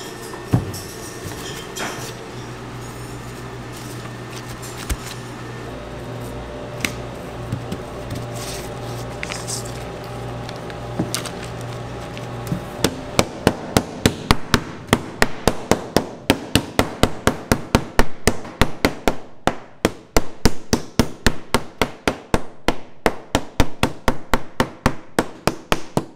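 Square metal meat tenderizer mallet pounding pork cutlets flat through plastic wrap on a cutting board: a rapid, even run of sharp blows, about three a second, starting about halfway through. Before the pounding, a steady hum with a few scattered clicks.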